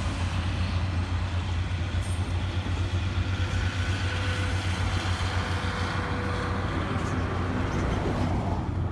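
Train hauled by a DE10 diesel-hydraulic locomotive running, its diesel engine a steady low drone over the noise of the train.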